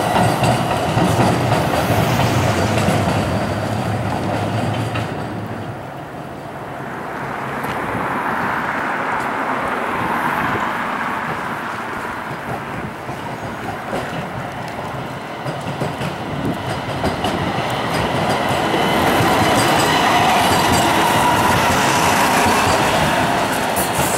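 Light rail cars running on street track over jointed rail. One car passes close at the start and fades away, and another approaches and grows louder toward the end, wheels clicking over the rail joints.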